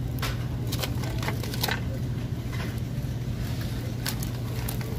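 Steady low hum of a supermarket freezer case, with scattered light clicks and crinkles of plastic-wrapped frozen packages being handled.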